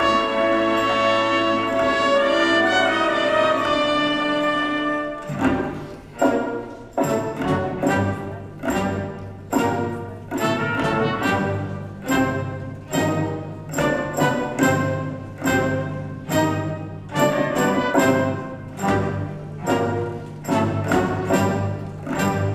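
Symphony orchestra with brass and strings playing Persian-style orchestral music. It holds sustained chords for about five seconds, then breaks into a driving pattern of sharp accented strokes, about one and a half a second, each dying away before the next.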